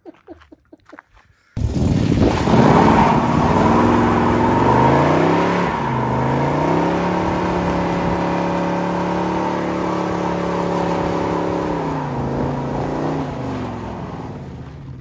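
Drag-racing vehicle engine under hard acceleration, cutting in suddenly. Its pitch climbs in two steps, holds high for several seconds, then drops near the end.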